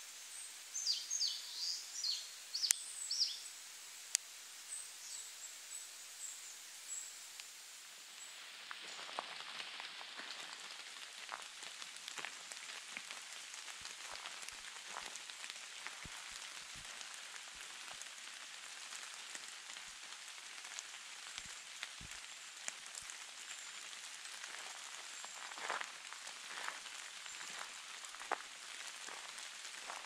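A small bird gives a quick series of high, falling calls, followed by fainter high notes. From about nine seconds in, rain patters steadily on leaves, with scattered drops ticking close by.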